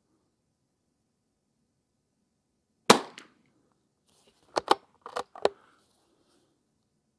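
A single shot from a Ruger American Rimfire .22 LR bolt-action rifle about three seconds in, followed a second and a half later by a quick run of five quieter metallic clicks as the bolt is worked to chamber the next round.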